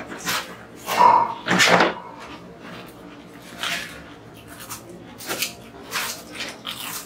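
Potato chips crunching and being chewed by mouth with no hands, in irregular short crunches. A brief loud vocal sound, with the loudest crunching, comes about a second in.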